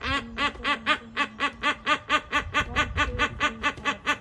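An animal giving a rapid, even run of short pitched calls, about five a second.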